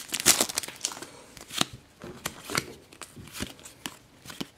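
Glossy Panini Adrenalyn XL trading cards being flicked through one by one, giving irregular light snaps and clicks as each card slides off the next. A short crinkle of the foil pack wrapper comes right at the start.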